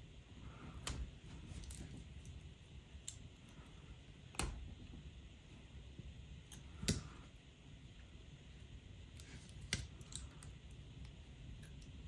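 Scattered soft clicks and taps of small jewelry pliers handling fine wire, irregular, the sharpest about four and seven seconds in, over a quiet low room hum.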